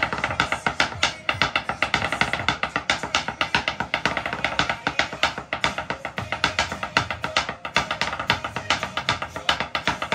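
Two wooden sticks drumming a fast, continuous drumline-style pattern on an OSB (oriented strand board) workbench top, dense sharp hits with no break, over a pop-rock song with drums.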